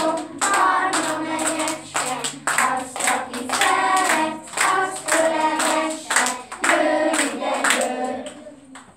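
A group of young children singing a song together, clapping their hands in time, with the singing dying away near the end.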